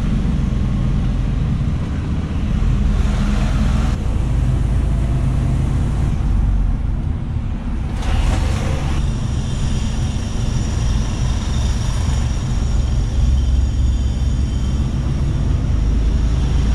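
Mercedes-Benz Actros truck driving, heard from inside the cab: a steady low engine and road rumble, with a faint high whine joining about ten seconds in.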